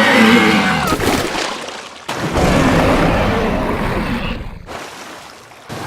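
Cartoon soundtrack effects: a sudden loud pitched sound that bends down in pitch, then a noisy rush lasting about two seconds.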